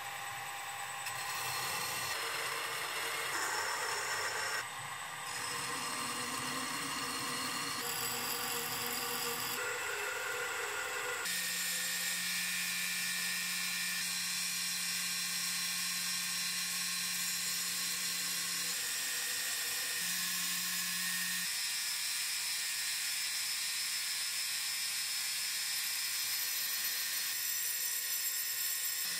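Belt grinder running with a steady whir and hum while a blackened steel knife blade is ground against its belt. The sound changes abruptly several times in the first ten seconds or so, then runs steadily.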